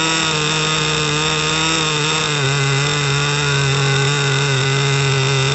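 HSP nitro RC car's small two-stroke glow engine running steadily at idle, its pitch wavering slightly and dipping a little about two and a half seconds in.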